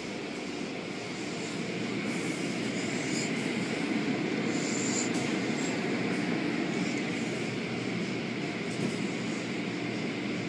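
Steady rumbling noise of automatic car wash machinery running, a little louder from about two seconds in.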